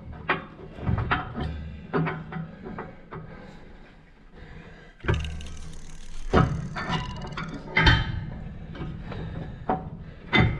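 Irregular knocks and clanks of metal drill parts being handled while rigging a mounting bracket with a rope. A steady rushing noise starts suddenly about halfway through.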